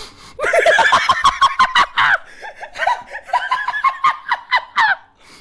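A man laughing hard in rapid, high-pitched bursts, starting about half a second in and stopping about five seconds in.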